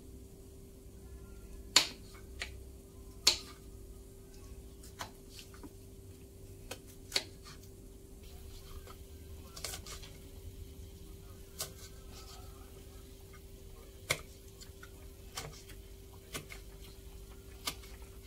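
Kitchen knife slicing red chillies on a wooden cutting board: about a dozen sharp taps of the blade on the board, irregular and a second or two apart. A steady low hum runs underneath.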